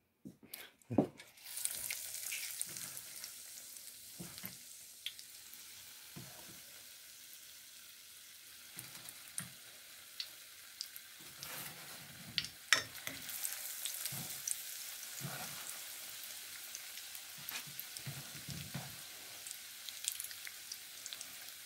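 Batter-coated Oreo cookies deep-frying in hot oil in a stainless steel pot: a steady sizzle that starts about a second in and grows a little louder past the middle, with occasional sharp clicks.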